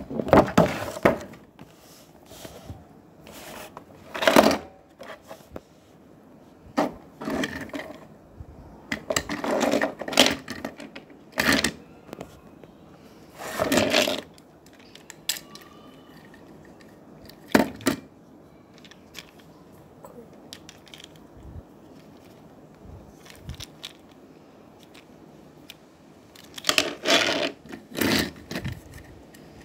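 Clear plastic toy packaging crackling and scraping in irregular bursts as a toy train engine and its truck are pulled out and handled, with small knocks of plastic on a tabletop.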